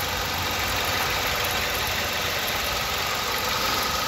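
Nissan Primera P12's 2.0-litre QR20 four-cylinder petrol engine idling steadily, heard from above the open engine bay, with a thin steady whine over the running.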